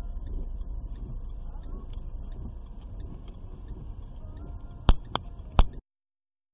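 Low engine and road rumble inside a car slowing to a stop, recorded by its dashcam, with three sharp knocks near the end. The sound then cuts off abruptly into silence.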